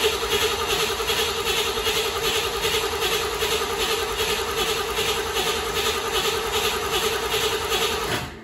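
Starter cranking a 1969 Corvette's 427 big-block V8 with the ignition disabled. The engine turns over in an even, pulsing rhythm without firing, to build oil pressure after about a year of sitting. The cranking stops suddenly near the end.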